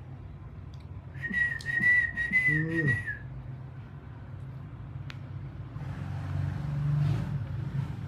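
Indian ringneck parrot whistling one steady, level note for nearly two seconds, starting about a second in.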